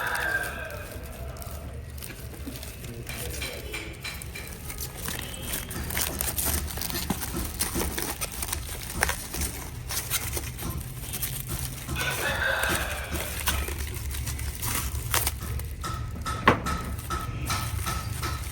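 A rooster crows once, about two-thirds of the way in, over a steady low hum and scattered clicks and knocks.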